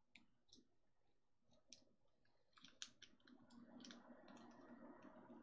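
Faint, scattered clicks and taps of a small screwdriver and tiny plastic-model screws being handled, a few at first and a quicker run of them from about two and a half seconds in.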